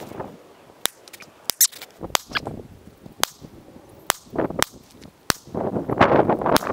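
A compact semi-automatic pistol firing a string of about nine shots, sharp cracks spaced unevenly from half a second to about a second apart, with a louder rushing noise near the end.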